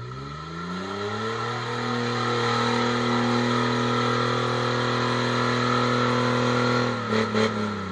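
Modified off-road jeep's engine revving up over about two seconds and held at high revs under load as it pushes through deep mud. Near the end the throttle comes off with a couple of brief stutters and the revs fall.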